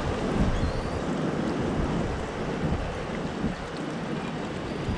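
Wind buffeting the microphone, with the wash of sea water below the pier.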